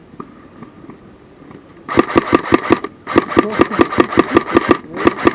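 Airsoft electric gun firing on full auto: rapid, evenly spaced shots, about ten a second, over the whir of its gearbox motor, in three bursts starting about two seconds in, the last still going at the end.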